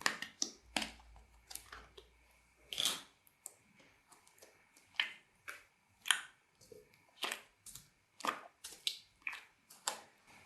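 Slime being squeezed and kneaded by hand, making irregular sticky clicks and pops, about two a second.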